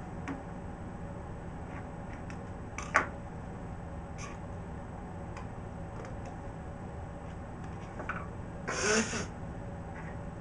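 Small handling noises as things are picked up and put down on a table, with a sharp click about three seconds in and a short hissing burst near nine seconds. A steady hum of the room runs underneath.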